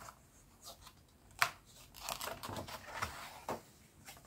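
A picture book's paper page being turned: a sharp flick about a second and a half in, then a couple of seconds of paper rustling and crinkling as it settles.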